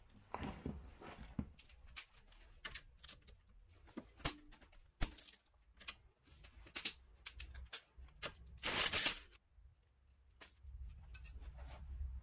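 Metal tools and parts clinking and knocking at irregular intervals, with a harsher burst of noise lasting under a second about nine seconds in.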